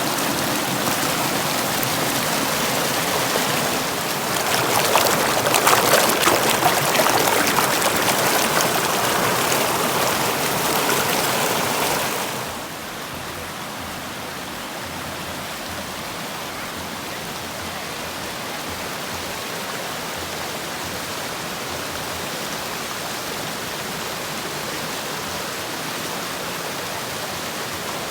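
River water rushing over rocks, louder and more uneven in the first part, then dropping suddenly to a quieter, steady rush about twelve seconds in.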